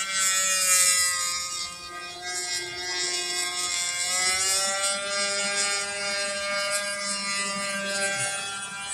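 Two-stroke 26cc brush-cutter engine of a radio-controlled boat running at high revs while the boat planes across the water. Its pitch sags about two seconds in, climbs back after about four seconds, and then holds steady.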